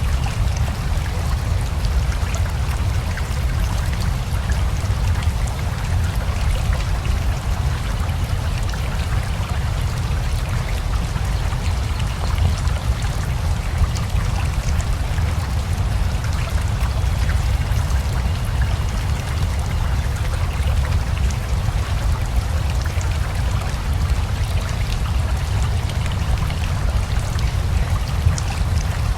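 Steady rain together with a flowing river: a constant rush of water with a deep low rumble underneath and fine scattered drop sounds on top.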